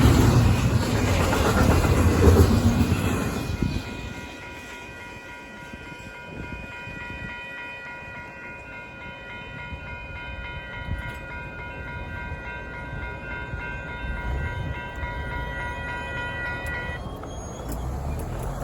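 Intermodal freight train cars rumbling past over the crossing for the first few seconds, the noise dropping off as the train clears. Then the crossing's warning bell rings steadily at several pitches for about thirteen seconds and cuts off suddenly.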